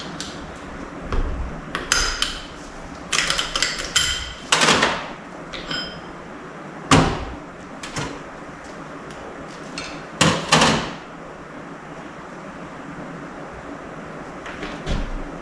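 Metal Powerglide transmission parts being handled: a series of irregular clinks and knocks, several with a short metallic ring, the loudest about seven seconds in and a pair near ten seconds.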